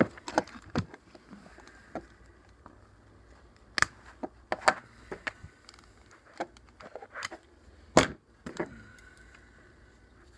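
A run of irregular, sharp clicks and taps from handling a safe's electronic keypad lock and pressing its buttons, with the loudest click about eight seconds in.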